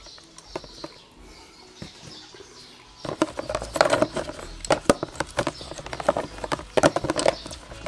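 Clutch plates being fitted into the clutch basket of a Yamaha DT125 two-stroke engine. It is quiet at first, then from about three seconds in comes a run of irregular sharp clicks and knocks as the plates are handled.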